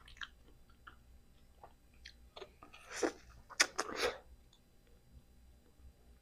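A person biting into a whole peeled ripe mango and chewing the soft flesh, close to the microphone. There are a few small wet mouth clicks at first, then a louder cluster of juicy bites and chewing about three to four seconds in.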